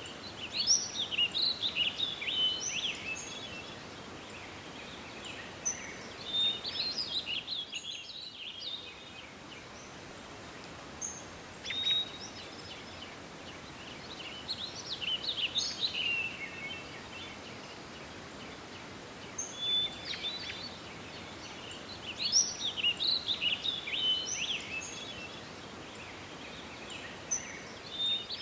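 Songbirds singing in short, chirpy phrases that recur every few seconds over a steady background hiss.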